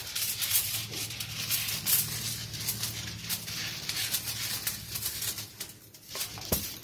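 Aluminium foil crinkling and crackling as a sheet is cut from the roll with scissors and handled, a dense run of quick crackles.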